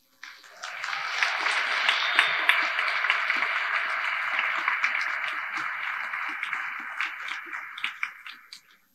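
Audience applauding: many hands clapping together, starting suddenly just after a choir song ends, holding steady, then dying away near the end.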